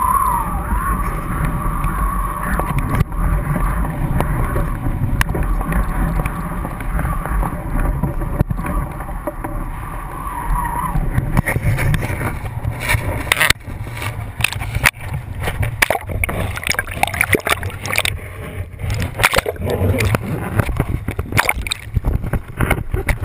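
Wind buffeting a GoPro housed on kitesurfing lines, a steady low rumble, with a wavering high whistle through the first half. About halfway through the whistle stops, and a run of sharp knocks and clatter follows as the camera swings about near the rider.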